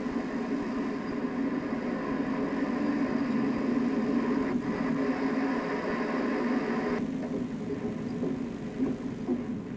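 Steady mechanical running noise of underground coal-mine machinery, a dense hum with the higher hiss dropping away about seven seconds in.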